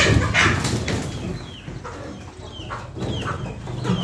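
A flock of chickens calling as they settle to roost, with many short high peeping calls repeating throughout and a loud squawk-like burst right at the start.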